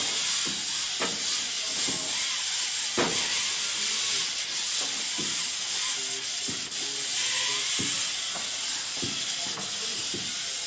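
A steady loud hiss, with scattered knocks and faint whining from the competition robot's motors as it drives about the field.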